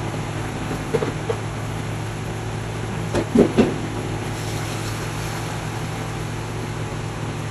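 A steady low hum, with a few brief knocks or clatters about a second in and again around three and a half seconds in.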